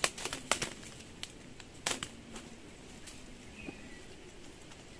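Caught wild doves flapping and struggling among branches as hands grab them: scattered sharp clicks and rustles, most of them in the first two and a half seconds, then only faint rustling.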